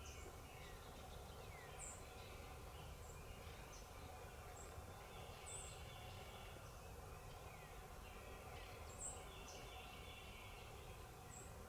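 Faint woodland birdsong: short, high songbird chirps scattered throughout. Twice, a longer rattling call, a wild turkey gobbling in the distance.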